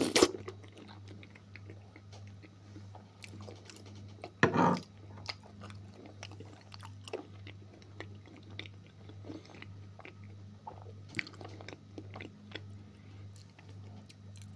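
Close-miked chewing of a spoonful of beans in tomato sauce: wet mouth sounds and many small clicks, with a louder sound as the spoon goes in at the start and one more short louder sound about four and a half seconds in. A steady low hum runs underneath.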